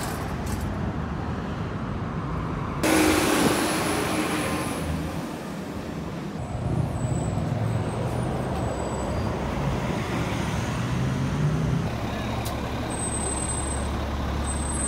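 City transit buses in street traffic: bus engines running as buses pass and pull away, with a loud burst of noise about three seconds in and an engine rising in pitch near the end as a bus accelerates.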